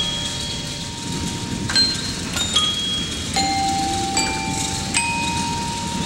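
Bell-like chime tones struck at uneven intervals, one about every second, each ringing on at its own pitch, over a steady low rumble.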